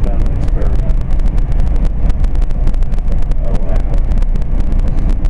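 SEPTA regional rail commuter train running at speed, heard from inside the passenger car: a loud, steady low rumble of wheels on the track with a constant irregular rattle and clicking.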